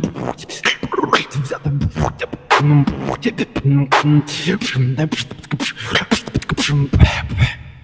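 Beatboxing: a quick run of vocal drum clicks and hits mixed with short sung bass notes, stopping abruptly near the end.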